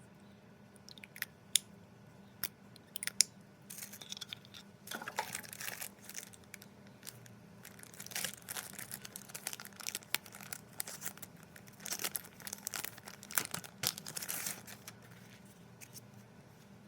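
Packaging being unwrapped by hand: a few sharp clicks, then bouts of tearing and crinkling wrapping that stop about a second before the end.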